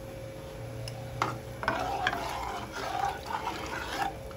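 A spoon stirring lentils and water in a pressure cooker, the liquid sloshing unevenly for a couple of seconds, with one knock just over a second in.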